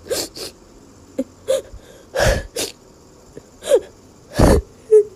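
Cartoon character's crying sound effect: short sobs and whimpers broken up by sharp, noisy gasping breaths, in quick separate bursts.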